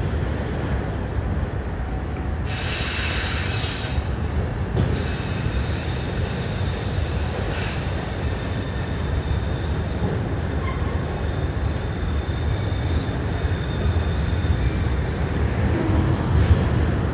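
Freight train of autorack cars rolling past on a curve: a steady rumble of wheels on the rails, with a high flange squeal that flares briefly about three seconds in and then lingers as a faint thin whine.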